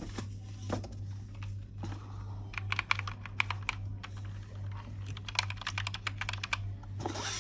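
Keys of an HK Gaming GK61 61-key mechanical keyboard being typed, clicking in two quick runs, about two and a half and five seconds in.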